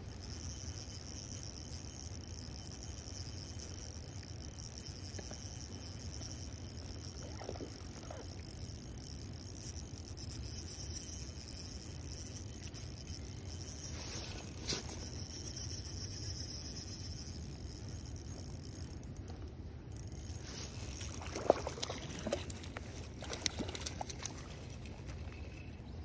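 Spinning reel being wound in, with a steady high whir that stops a little past halfway as the hooked trout comes to the net. A brief splash from the fish at the surface around the middle, then scattered sharp clicks and knocks from handling the net and tackle near the end.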